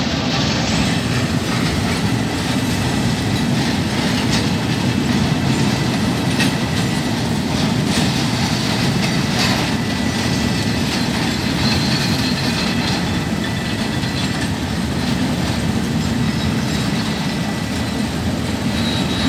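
Container freight train rolling past: a steady rumble of steel wheels on rail, with occasional clacks as the wagons pass over the rail joints.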